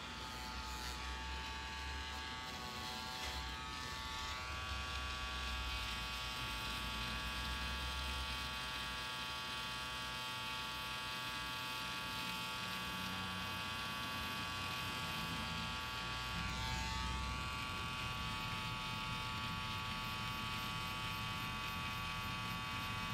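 Corded permanent-makeup tattoo pen buzzing steadily as it works over an eyebrow to lift old grey tattoo pigment.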